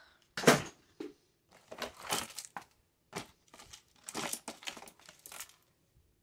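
Rustling and crinkling as objects are handled and moved around, in a string of short bursts, the loudest about half a second in. It stops near the end.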